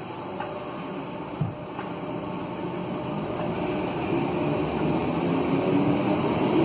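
Southern Class 377 Electrostar electric multiple unit pulling away from the platform, its traction motors whining and rising in pitch as it gathers speed, getting steadily louder. A single knock about a second and a half in.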